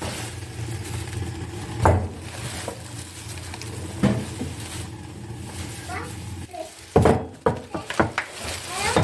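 Household knocks and clunks of objects being handled and set down: single knocks about two and four seconds in, then a quick run of them near the end, over a steady low hum. Short voice-like sounds are heard around six seconds and at the very end.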